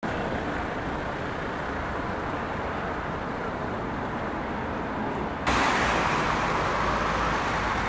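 Steady hiss of road traffic outdoors, growing abruptly louder and brighter about five and a half seconds in.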